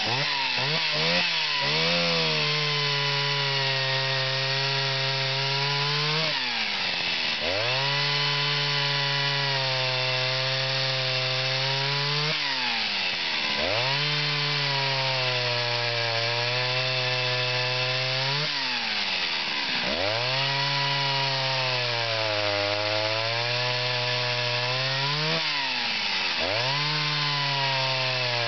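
Late-1970s Jonsered 52E 49 cc two-stroke chainsaw running at high revs while cutting through a log. The engine note dips sharply and climbs back four times, about every six seconds.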